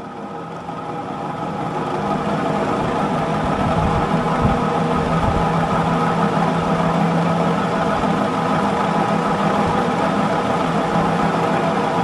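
Moss Caribbean Breeze 36-inch industrial ceiling fan running at medium-high speed: a steady motor hum with a rough, noisy bearing sound, growing louder over the first two seconds and then holding even. The bearings run rough and loud, though not stiff.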